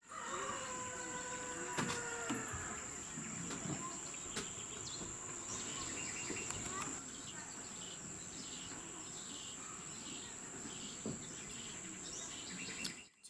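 Tropical forest insects: a steady high-pitched buzz that drops in level about halfway through. A run of short chirps repeats about one to two times a second over it.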